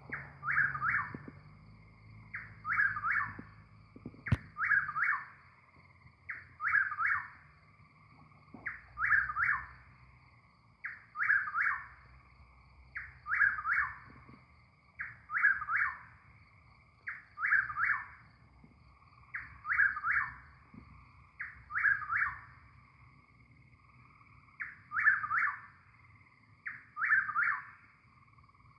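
Chuck-will's-widow singing its song, a quick phrase of several whistled notes repeated about once every two seconds, with one slightly longer pause about two-thirds of the way through.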